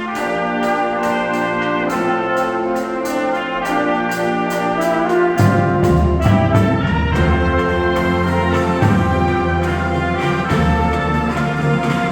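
Marching band brass playing sustained chords over a steady beat, with a deep low-brass bass line coming in about five seconds in.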